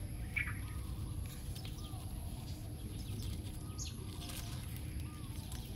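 Outdoor ambience: faint bird chirps and short calls now and then over a steady low rumble, with a thin high tone held throughout.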